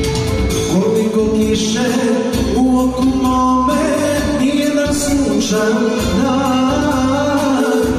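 Live band music: an accordion and a Korg Kronos keyboard playing, with a melody sung into microphones over an amplified PA.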